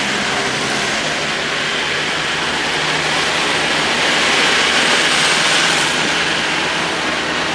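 Steady noise of a moving road vehicle: a constant rush of road and wind noise over a faint low engine hum.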